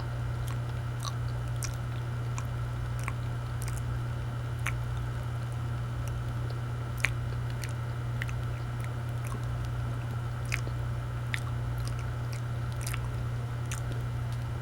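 A person chewing banana, with small wet mouth clicks at irregular intervals, over a steady low hum.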